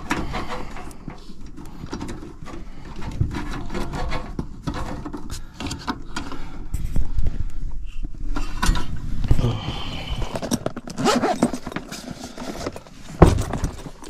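Handling noise of electrical wiring inside a heat pump air handler's sheet-metal cabinet: scattered clicks, rustles and scrapes as the wires are pulled aside to get at the heat-strip contactor, with one loud knock about 13 seconds in.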